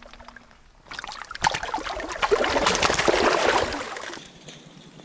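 Water splashing for about three seconds, an irregular run of splashes and small clicks that starts about a second in and stops suddenly near the end.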